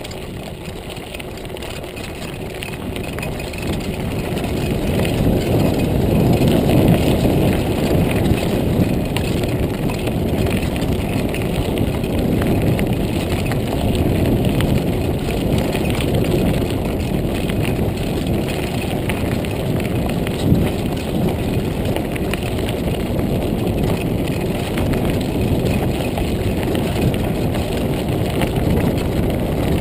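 Montague Paratrooper Pro folding mountain bike rolling over a gravel trail: a steady crunch of tyres on gravel and rattle of the bike, with wind noise. It grows louder about five seconds in, and there is a single knock about two-thirds of the way through.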